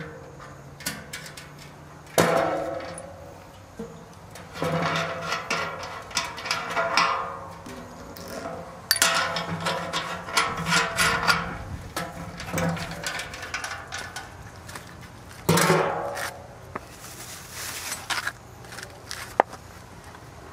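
Irregular knocking and clattering, with sharp knocks and short noisy bursts coming at uneven intervals.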